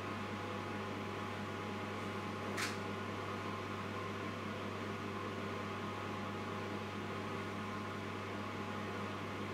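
Steady electrical hum of a running kitchen appliance, with one sharp click about two and a half seconds in.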